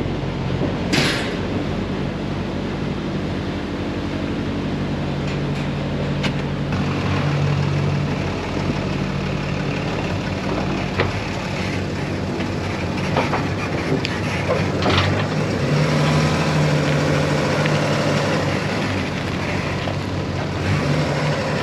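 Vehicle engine running steadily, a low hum with a few knocks and clicks over it.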